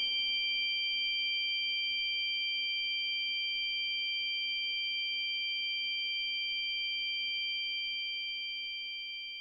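A struck bell-like chime note ringing on in a few steady high tones, the last note of an instrumental piece, slowly fading away toward the end.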